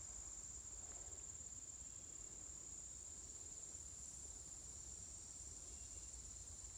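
Insects trilling in a steady, high-pitched chorus that never breaks.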